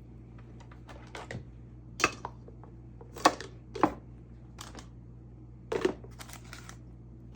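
Knocks and clatter of food containers being handled as sliced peppers, jalapeños and onions are put into them, with about four sharper knocks standing out among lighter taps.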